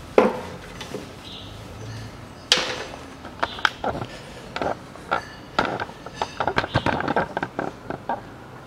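Handling knocks and clatter: a sharp knock just after the start, another about two and a half seconds in, then a quick run of light clicks and rattles that stops shortly before the end.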